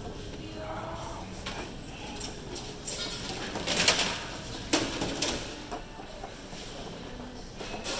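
Restaurant room noise with faint background voices, a short burst of noise about four seconds in and a sharp knock just under a second later.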